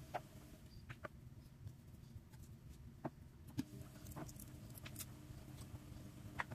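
A handful of faint, irregular clicks and taps over a low steady hum: a knife scraping cheese from a foil wrapper and knocking lightly on a wooden chopping board while dough is filled.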